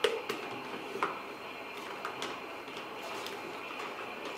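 A few light clicks and knocks from the machine's accessories being handled and set in place, over a steady faint hiss.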